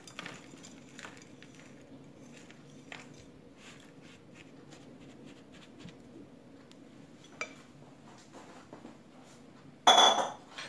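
Faint scraping and tapping of a silicone spatula working biscuit-crumb mixture out of a glass bowl into a cake tin. Near the end comes one loud, ringing clink of dishes.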